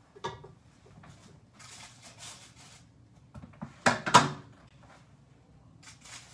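Kitchen handling sounds: light scraping and clinks, then two sharp knocks close together about four seconds in.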